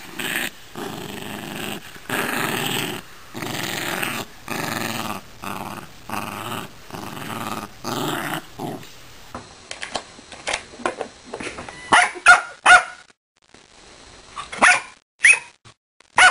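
Small dog growling in play while tugging on a rope toy, a string of rasping growls with short breaks between them. About nine seconds in this gives way to short, sharp barks, three in quick succession and then two more.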